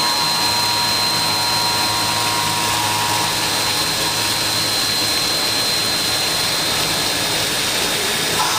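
Five-axis CNC machine running steadily: a constant high whine over a broad rushing noise.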